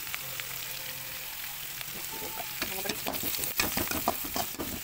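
Sliced onions and green chillies sizzling in hot oil in a metal pan. From about halfway through, a spatula stirs them, scraping and knocking against the pan in quick, uneven strokes.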